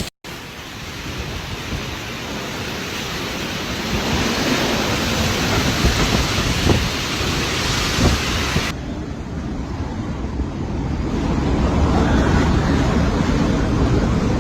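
Typhoon winds gusting hard, with wind buffeting the microphone. About nine seconds in the noise turns abruptly duller.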